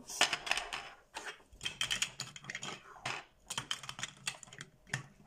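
Plastic Duplo bricks clicking and clattering as they are pressed together and handled: a quick, irregular series of clicks and knocks.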